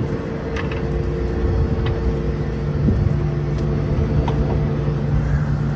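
John Deere S790 combine running, heard from inside its cab: a steady machine hum with a few faint clicks.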